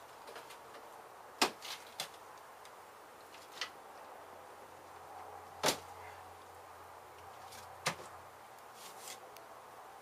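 Scattered sharp knocks and cracks of wooden wall boards and framing being handled during a beehive cutout, about seven in all, three of them loud, over a faint steady hum.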